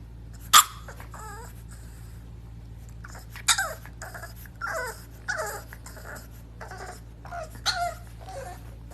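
A puppy whimpering and yelping: one sharp yelp about half a second in, then a run of high cries, each sliding down in pitch.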